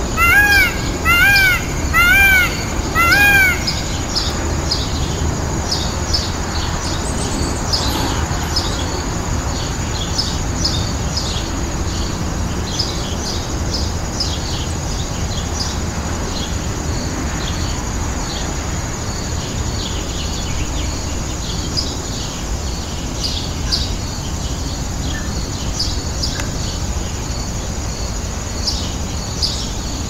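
A turkey yelping four times in the first few seconds, one clear arched call about every second. Behind it, small birds chirp throughout.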